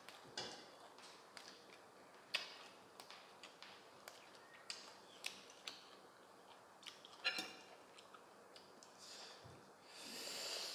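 Fresh herb sprigs being stripped of their leaves by hand: soft leaf rustles with scattered sharp, light clicks, a few of them louder. A breathy hiss swells near the end.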